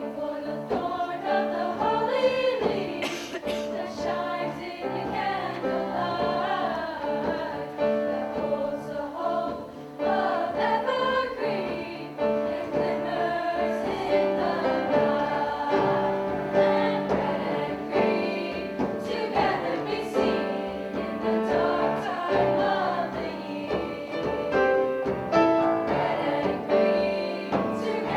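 Women's choir singing in harmony, with held, sustained chords that shift from note to note.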